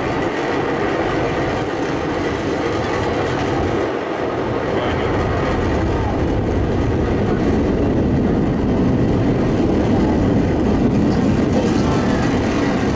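Falcon 9 rocket's nine Merlin engines heard from miles away as a steady rumble that grows louder in the second half.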